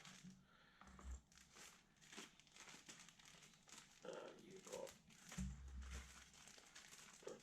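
Faint crinkling and rustling of packaging being handled and opened, with a couple of soft low thumps.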